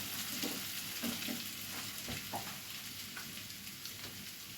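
Chicken pieces and spice masala sizzling in oil in a pan, slowly dying down after the gas flame has been turned off, with a few faint knocks.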